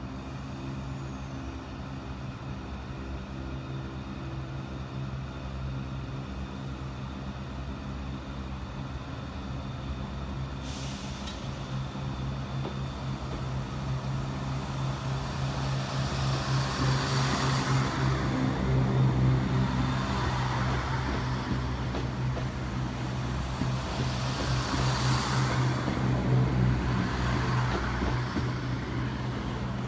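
Southern Class 377 electric multiple unit moving slowly along the platform close by. Its running noise builds from about halfway through, with several rushing swells as its bogies pass, over a steady low hum.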